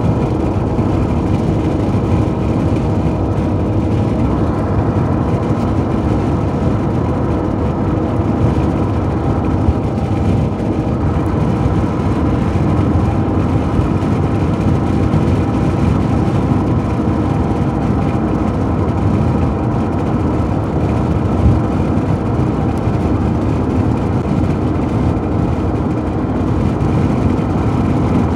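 Steady road noise of a car driving at highway speed, heard from inside the cabin: tyre and engine drone with a faint steady hum.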